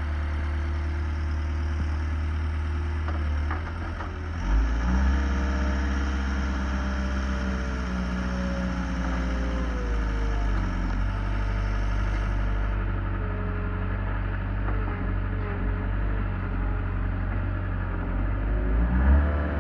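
Skid steer engine running and driving the hydraulics of a skid-steer-mounted log splitter. Its note jumps up with a thump about four and a half seconds in, wavers and sags through the middle, and rises again near the end.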